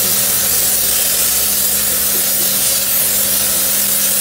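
Car-wash hose sprayer with a blue canister attachment, spraying a fine mist in a steady loud hiss, over a faint steady low hum.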